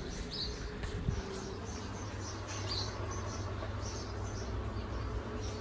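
Small birds chirping from the garden, short high chirps coming every second or so, over a low steady rumble.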